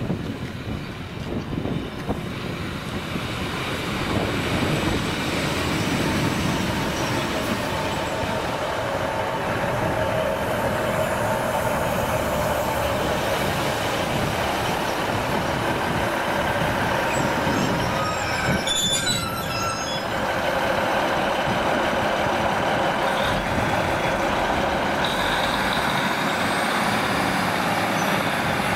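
Class 156 diesel multiple unit pulling into the platform and slowing to a stand, its underfloor diesel engines running steadily. There is a brief high squeal of brakes about two-thirds of the way through.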